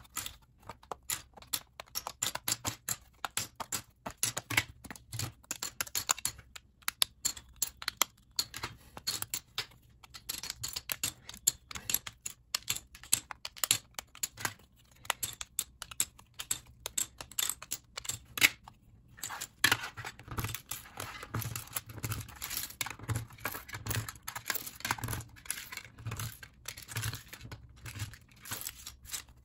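Plastic LEGO bricks and plates being pulled apart by hand and dropped onto a tabletop pile of loose pieces, a steady run of small clicks and clatter. In the second half, an orange brick separator pries small tiles off a plate, adding duller knocks.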